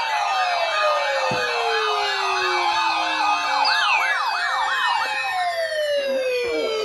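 Several sirens sounding at once, overlapping: a fast up-and-down yelp alongside long tones that slide down in pitch, with new falling tones starting about four seconds in.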